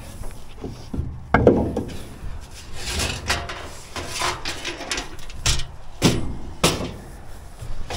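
Scattered knocks and thumps from equipment being handled to get a small ride-on high-grass cutter tractor down. The loudest comes about a second and a half in, with a few more strikes later on.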